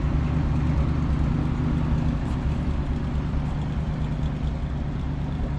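1968 International Loadstar CO-1700 truck's engine idling steadily, growing slightly quieter toward the end.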